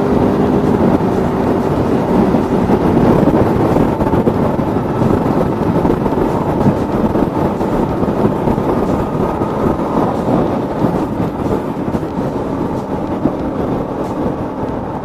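Aprilia Tuono V4 motorcycle on the move: steady rushing wind noise on the rider's microphone over the V4 engine running underneath.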